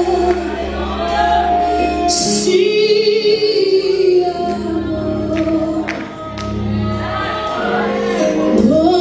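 Live gospel song: a woman sings lead with backing singers over a band, with low bass notes held underneath and a brief cymbal wash about two seconds in.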